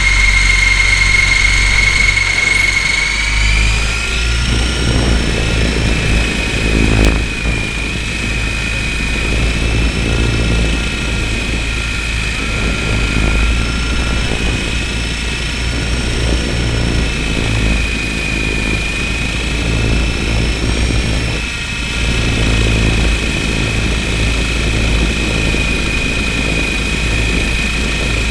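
RC helicopter's motor and rotors, heard from the camera mounted on it: a steady high whine over a low rumble. The whine steps up a little in pitch about four seconds in, then wavers slightly as the throttle shifts.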